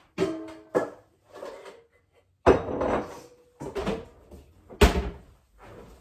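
Kitchen cupboard doors and drawers being opened and shut: a string of sharp knocks and clunks, the loudest about two and a half seconds in and again near five seconds, the first of these leaving a short ring.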